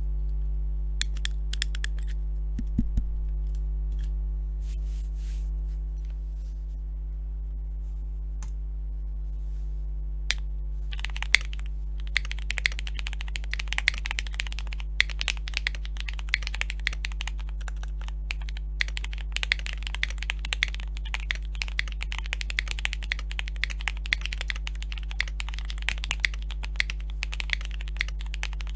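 Typing on a TKD Cycle7 custom mechanical keyboard with SP-Star Magic Girl switches. A few scattered keystrokes come first, then fast continuous typing starts about ten seconds in, all over a steady low hum.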